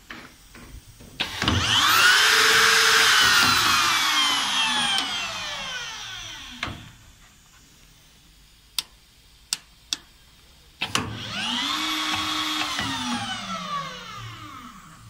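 Electric router motors of a Yilmaz ST 263 drainage-slot milling machine switched on, whining up to speed, running a few seconds and winding down with a falling pitch. Three sharp clicks follow, then a motor starts again and winds down once more.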